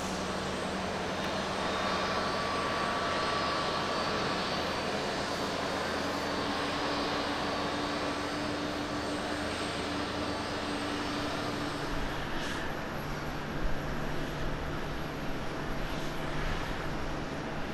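Jet engines of a Japan Airlines Boeing 787-9 climbing out after takeoff: a steady roar with a thin whine over it. About twelve seconds in, this gives way to the lower steady hum of an All Nippon Airways Boeing 777-200ER as it touches down, with a few short knocks.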